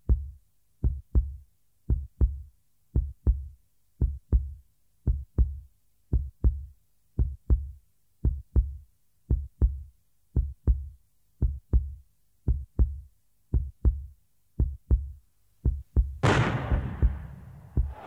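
Background music: a deep, even beat of paired thumps about once a second, like a heartbeat, with silence between. About two seconds before the end a sudden rush of noise swells in and then fades.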